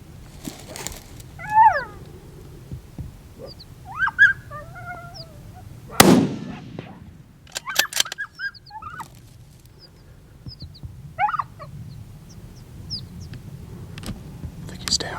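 Coyotes barking and yipping in short calls that rise and fall in pitch, with a single loud gunshot about six seconds in that rings out briefly. The barking carries on after the shot.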